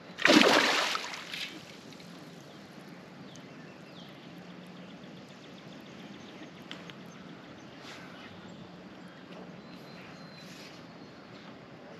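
A large hooked fish splashing at the surface once, loud and sudden, dying away within about a second. After it only quiet water and a few faint clicks.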